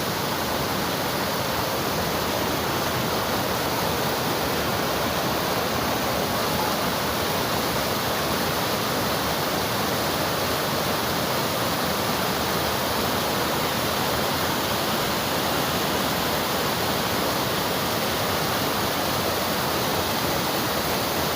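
Water of a stream flowing, a steady, even rush of water noise.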